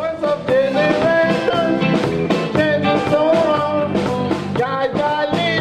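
A live band playing: electric guitars, electric bass and drum kit, with a male singer at the microphone.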